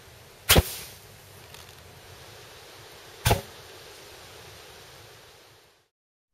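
Two sharp whooshes about three seconds apart, the first slightly louder, as flash cotton (nitrocellulose) flares in the muzzle of a homemade PVC rocket launcher replica as a fake muzzle blast. A steady background hiss runs under them and fades out near the end.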